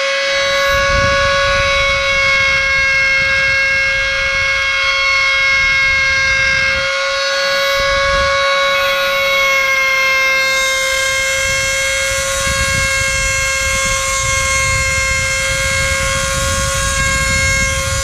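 Handheld rotary tool running at a steady high-pitched whine, its bit grinding a groove into the end of a pipe stem. The rough grinding noise under the whine stops briefly about seven seconds in and picks up again a second or so later.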